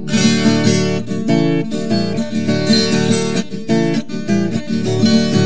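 Instrumental break of a sertanejo modão song: a guitar strummed in a steady, rhythmic pattern with no vocals.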